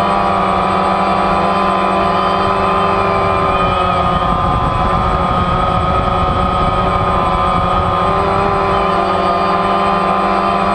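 DJI Phantom quadcopter's electric motors and propellers whining steadily, heard close up from a camera mounted on the drone. The pitch wavers slightly as it manoeuvres, over a low rumbling underneath.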